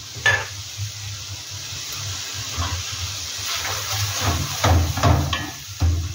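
Wooden spatula stirring thick tomato gravy in a pan: a series of wet, scraping strokes that come faster in the second half, over the hiss of the sauce cooking.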